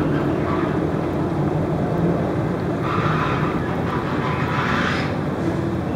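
Steady low drone of a marine engine running. A hiss rises over it between about 3 and 5 seconds in.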